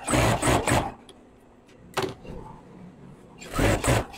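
Industrial lockstitch sewing machine stitching a denim jeans leg in two short runs, one in the first second and another starting about 3.5 s in, with a sharp click about 2 s in while it stops.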